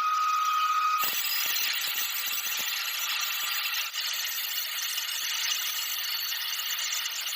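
Metal-cutting machine tool at work: a steady high-pitched squeal for about the first second, then an abrupt change to a harsh, hissing grind of cutting.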